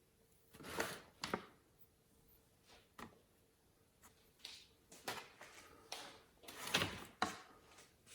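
A bag rustling and crinkling as kittens play with it, in irregular bursts: two loud rustles about a second in, then a busier run of rustles toward the end.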